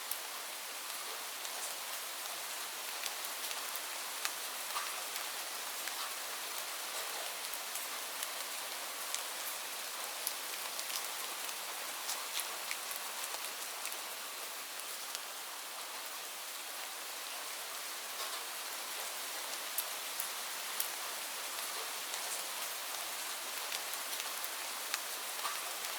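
Steady rainfall, a continuous hiss with many small, sharp drop ticks scattered through it.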